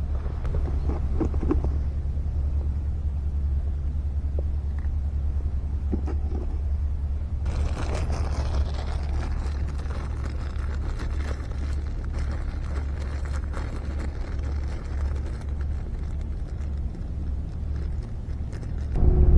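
Wind buffeting the microphone in a steady low rumble, with a few faint clicks early on. About seven and a half seconds in a hiss joins it, with fine crackling running through it.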